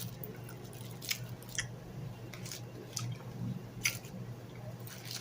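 A person chewing a chewy coconut candy with the mouth, making scattered wet clicks; the sharpest comes a little before four seconds in.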